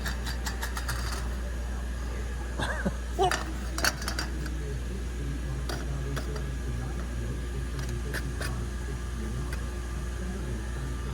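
A steady low electrical hum, with scattered light metallic clinks and taps. The loudest clinks come a few seconds in.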